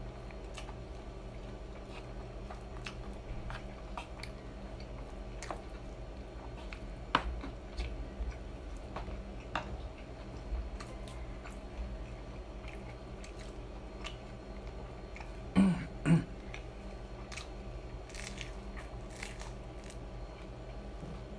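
Close-miked eating: chewing with scattered small wet clicks and crunches, ending in a bite into crispy fried chicken. Two short, louder sounds come a little past halfway.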